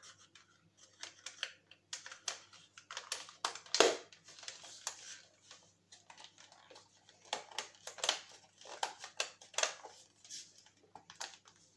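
Irregular small clicks, taps and rustles of the hair dryer's plastic housing and parts being handled and fitted back together by hand, with the sharpest knock about four seconds in.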